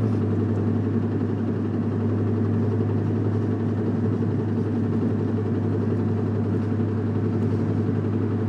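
Cabin sound of a 1997 Nissan Maxima's 3.0 V6 pulling steadily in gear just after an upshift, with the engine-bay knocking that gets loud on gear changes and lifting off the throttle. It disappears with the clutch pedal in, which points to the driveline rather than the engine itself.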